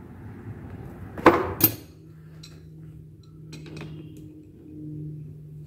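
Two sharp metal clanks about a third of a second apart, about a second in, followed by a few light clicks: metal tools such as an adjustable wrench being handled.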